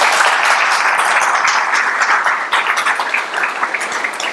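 Audience applauding: a dense patter of many hands clapping, easing slightly near the end.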